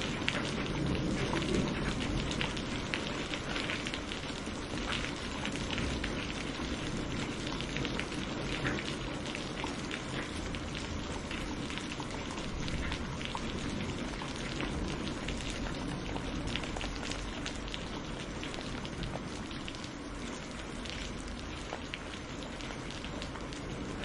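Steady rain falling and pattering, with many individual drops ticking. A low rumble of thunder dies away over the first couple of seconds.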